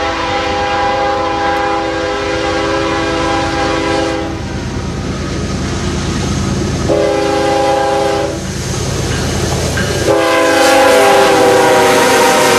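Multi-chime air horn of a Canadian National GE Evolution-series diesel locomotive sounding a grade-crossing signal. It gives a long blast, a short one about seven seconds in, and another long one about ten seconds in that drops in pitch as the locomotive passes. The diesel and the wheels on the rails rumble underneath.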